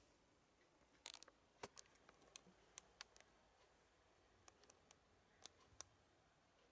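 Near silence: room tone with a scatter of faint, irregular small clicks, a cluster about a second in and a few more near the end.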